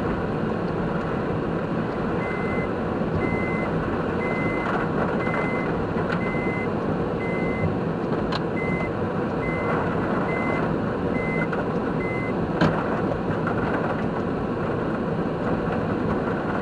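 A vehicle's reversing warning beeper sounding about eleven short beeps at one high pitch, spaced just under a second apart, then stopping. Under it runs a steady rushing noise, with two sharp clicks.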